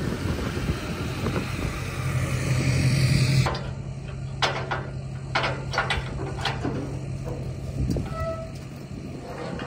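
Pickup truck engine idling steadily, with a rushing hiss over it in the first few seconds. From about four seconds in, a run of metal clanks and knocks as the steel loading ramps of a flatbed equipment trailer are lifted and swung up.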